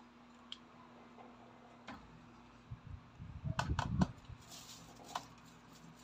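Plastic action figure joints and parts clicking as the figure is handled and posed, with a quick run of sharp clicks and handling noise between about three and four seconds in and a few single clicks around it.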